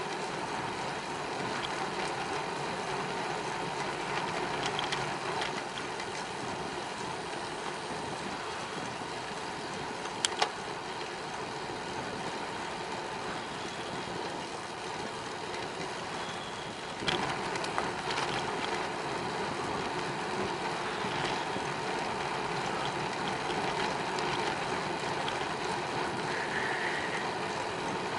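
Steady riding noise from a bicycle on a paved cycle path: tyre hum and wind rush. There are a couple of sharp clicks about ten seconds in and another about seventeen seconds in, from the bike going over bumps.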